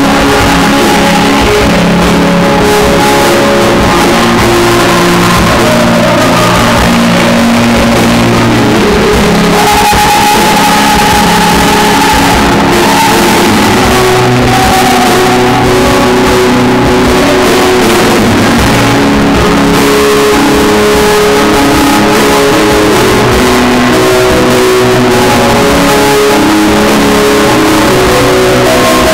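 Rock music played live and loud, with electric guitar carrying held notes over a dense, unbroken wash of sound.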